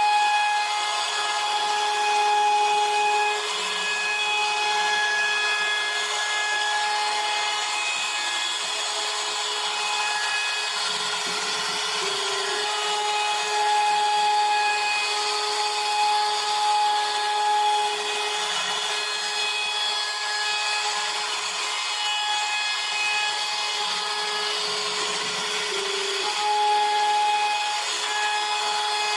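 CNC router spindle carving wood: a steady high whine with a layer of cutting noise, the pitch stepping up briefly a couple of times as the bit moves through the cut.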